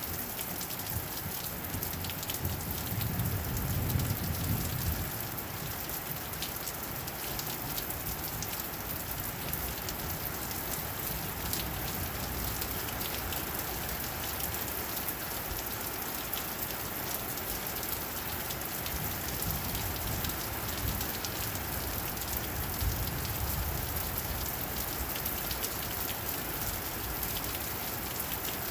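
Steady rain falling on pavement, a dense patter of drops, with a low rumble swelling a few seconds in and again about two-thirds of the way through.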